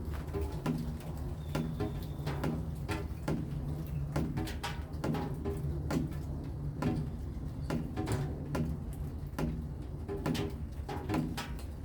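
Rain falling in heavy drops that tap irregularly a few times a second, some with a short ringing tone, over a steady low rumble.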